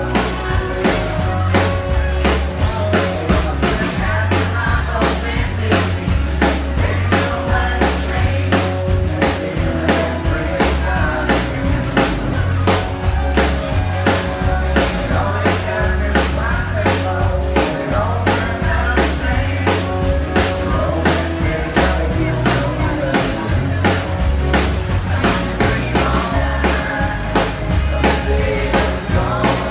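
Live country band playing a song: drum kit keeping a steady beat under bass and guitars, with a male lead vocal.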